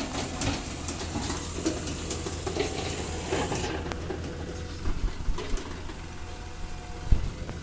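Cat hydraulic excavator working a rocky slope: a steady low diesel engine hum with scattered clanking and rattling of rock and steel. A hiss cuts off about halfway through, and heavy thumps come about five seconds in and again near the end.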